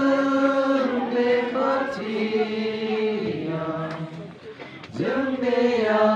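A congregation singing a hymn together in slow, long held notes. The singing thins out about four seconds in, and the next line starts about a second later.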